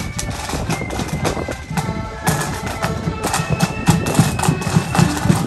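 Marching band playing a tune over a steady drumbeat. The melody grows stronger about two seconds in.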